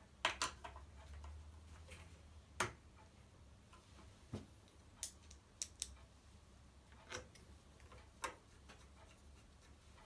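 Irregular light clicks and taps, about nine in all, from a screwdriver and the plastic links of a cable chain as the chain's end bracket is screwed down to an aluminium rail. A faint steady low hum lies underneath.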